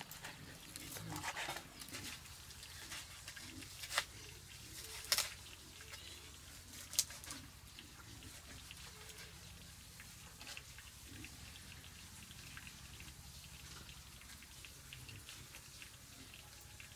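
Kitchen knife cutting grilled meat on a cutting board: a few sharp taps of the blade on the board, spaced a second or two apart, the clearest about 4, 5 and 7 seconds in. A faint steady low hum runs underneath.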